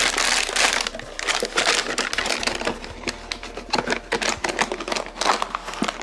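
Plastic anti-static bag crinkling and rustling as the motherboard inside it is handled and lifted out of its box, with many small clicks and taps.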